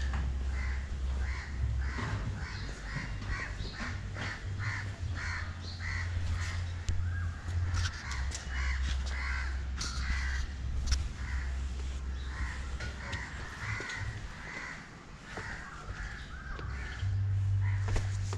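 Crows cawing, many short calls repeating and overlapping, over a steady low rumble.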